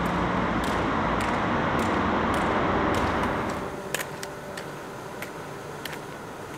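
Steady traffic noise echoing inside a road tunnel, fading out about three and a half seconds in. After that, quieter open-air background with a handful of sharp clicks from trekking pole tips striking the stony track.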